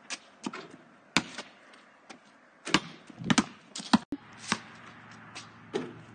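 Basketball bouncing on an asphalt driveway and striking the hoop: a string of sharp, irregular thuds, about a dozen in all.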